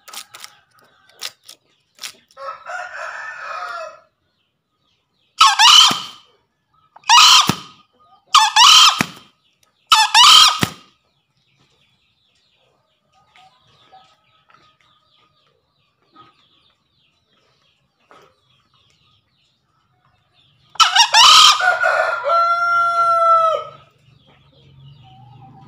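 Male green junglefowl crowing as a challenge call to rival males: a softer call first, then four short crows about a second and a half apart. After a pause of about ten seconds comes one longer crow that ends in a drawn-out note.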